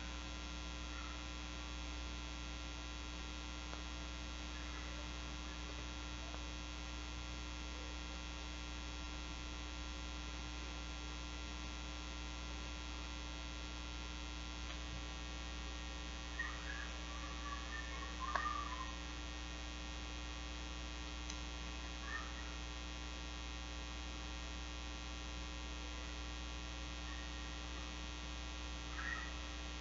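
Steady electrical mains hum, with a few brief, faint high squeaks about midway and near the end.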